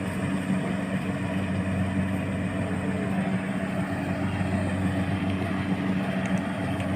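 Engine of a rice harvesting machine running steadily, a constant hum with no change in speed.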